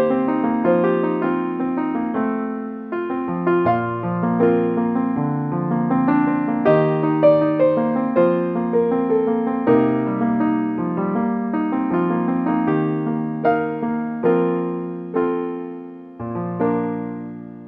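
Solo piano music playing a slow, gentle melody of struck notes, ending on a chord that fades away near the end.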